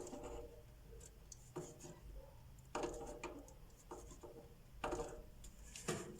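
Short clicks and scrapes of pliers squeezing a small crimp terminal onto a dryer motor's winding wire, coming irregularly about six times.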